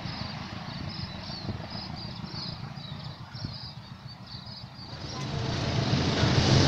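Low, steady rumble of a distant passenger train moving away across open fields, with wind noise and faint high chirps about two to three times a second. About five seconds in, a louder rush of noise sets in and keeps building.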